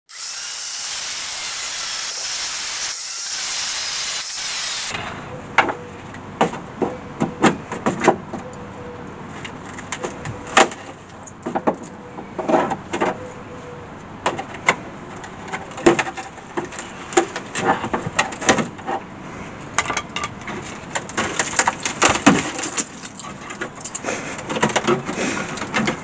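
Angle grinder with a cutting disc slicing through a rusted steel rocker panel, a loud steady hiss for about five seconds that cuts off suddenly. Then a run of irregular metallic clanks, knocks and scrapes as the rotten sheet metal is pulled and broken away by hand.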